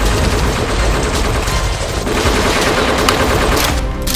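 Rapid, continuous automatic gunfire sound effects, many shots overlapping in a dense volley, which break off shortly before the end.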